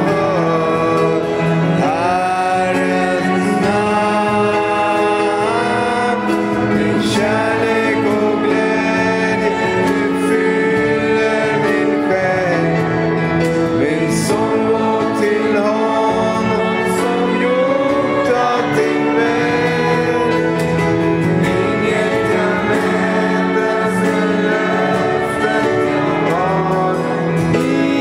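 A Swedish worship song performed live: a woman's voice sings the melody with grand piano, acoustic guitar and trumpet, and the congregation sings along.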